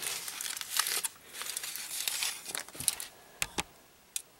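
Wrapper crinkling and rustling as chocolate surprise eggs are unwrapped and their fragile chocolate coating peeled off, followed by three short sharp clicks near the end.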